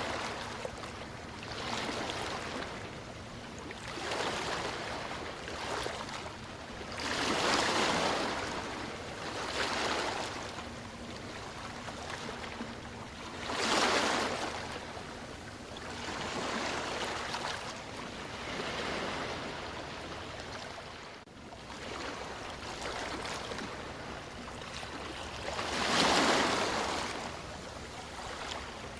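Ocean waves washing in, a swell of rushing noise rising and falling every few seconds.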